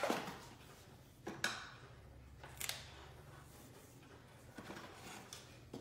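A handful of light knocks and rustles, about a second or so apart: hardcover children's books and a cardboard box being handled, pulled out and set down.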